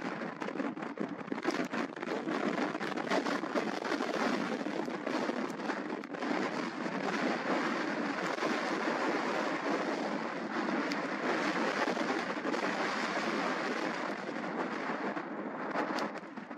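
Jet engine noise from a Boeing 767-200 freighter on short final approach with its landing gear down: a steady, even rush of engine sound that holds at one level while the jet comes closer.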